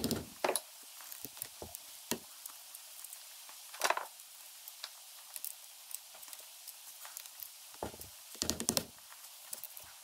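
Screwdriver working at the valve rocker assembly of a small single-cylinder engine's aluminium head: scattered light metal clicks and taps, with short scrapes about four seconds in and a quick cluster of them near the end, as the rocker parts are worked loose.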